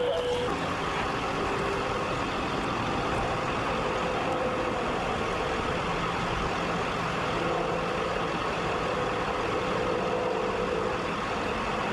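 Steady rumbling noise like a vehicle engine running, with a faint hum that comes and goes.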